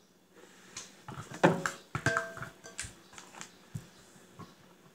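Spoon scooping thick sauce out of a stainless steel pot into a glass baking dish: a string of knocks and scrapes against the pot rim and the glass, one of them ringing briefly about two seconds in.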